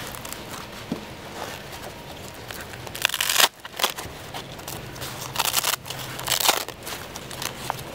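Nylon fabric of a soft body-armor carrier rustling and scraping as the armor panel is worked out of its cover, with a louder burst about three seconds in and a few shorter ones near six seconds.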